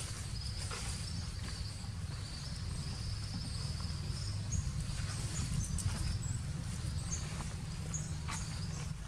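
Outdoor ambience of insects trilling steadily at a high pitch, with short higher chirps, over a steady low rumble.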